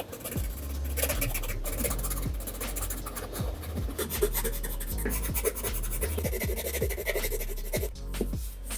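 Paper being handled by hand: scratchy rubbing and rustling with many small clicks and taps, as of a handmade paper blind bag and its paper contents being opened and sorted. Quiet background music runs underneath.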